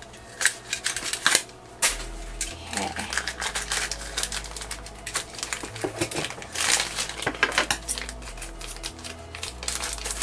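Hands opening a plastic toy blind-box carrier and handling the crinkly foil blind bag from inside it: a rapid, uneven run of small clicks and crinkles, busiest a little past the middle.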